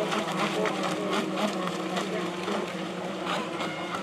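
Electric model racing boats running at speed, their motors making a steady, high buzzing drone.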